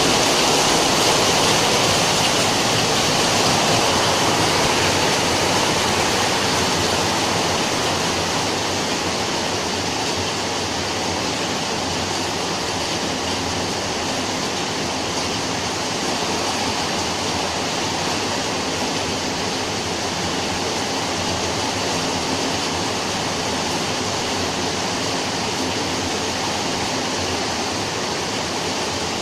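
Steady rain falling: a dense, even hiss with no separate drops or tones. It eases slightly over the first ten seconds, then holds steady.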